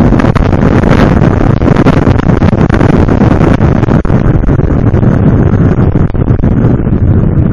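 Motorcycle under way on a road, with heavy wind buffeting on the microphone over the engine.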